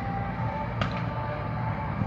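Fireworks display: one sharp firework bang a little under a second in, over a steady background din.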